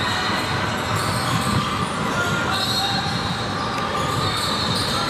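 A basketball being dribbled on a hardwood gym floor during a game, over the steady chatter of a crowd of spectators in a large gym hall.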